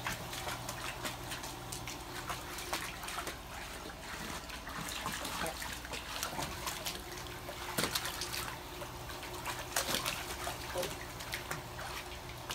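Shallow water in a plastic kiddie pool splashing and sloshing as labradoodle puppies wade and paw through it, in many small irregular splashes.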